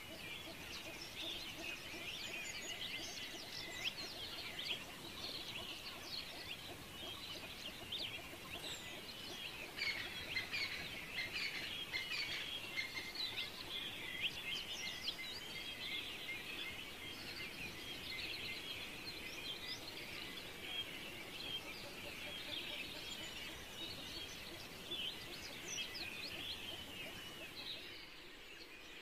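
Many small birds chirping at once, a dense, steady chorus of short high chirps overlapping one another.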